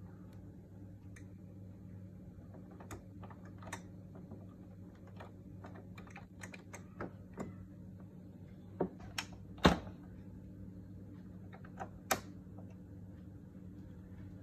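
Scattered light plastic clicks and taps from handling a Canon Pixma G3420 ink-tank printer and its ink bottles, with a few sharper clicks in the second half, over a faint steady low hum.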